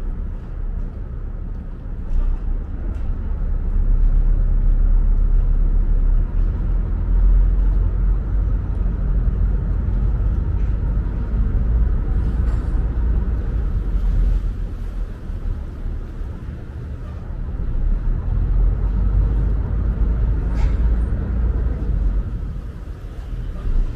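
Heavy engine rumble with a steady low hum, swelling and easing in loudness over several seconds.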